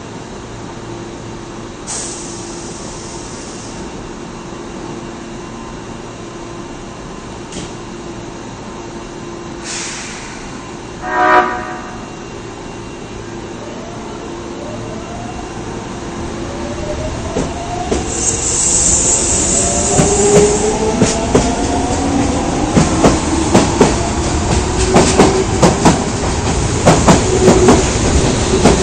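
Osaka subway 22-series train with an odd-sounding horn, the fault the recording is about, giving one short blast about 11 seconds in. The train then pulls away: rising motor whines climb in pitch and the wheels click more and more often as the sound grows louder.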